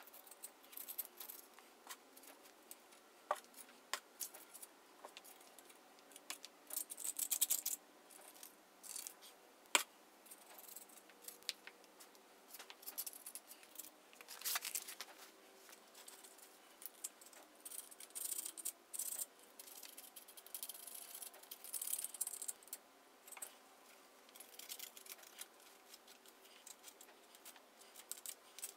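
Irregular scraping, rasping and sharp clicks of a small hand tool being worked against the metal parts of a backhoe's hydraulic swing cylinder and pivot. The loudest are a scratchy burst about seven seconds in and a single sharp click near ten seconds.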